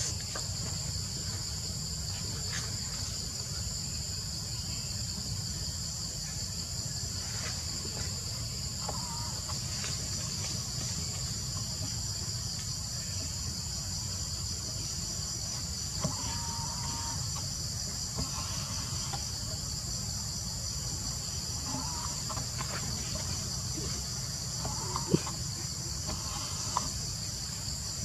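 Steady high-pitched insect chorus, a continuous buzz, with a few short faint calls and a couple of sharp clicks.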